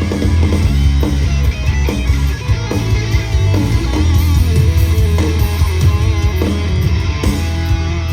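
Live rock band playing an instrumental passage, with electric guitar out front over a steady bass line and regular beats.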